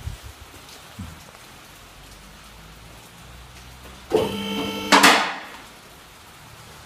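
Car lift raising the car body: a short, steady, flat-pitched hum of the lift motor about four seconds in, ending in a loud sudden rushing burst that fades within half a second. Before that there is only a steady low hiss.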